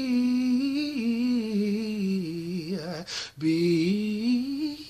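A man singing unaccompanied in a gospel style, drawing out long notes that bend and waver in a run, with a quick breath about three seconds in.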